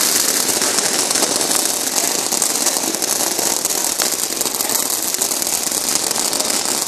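A lit firework burning with a steady, dense crackling hiss.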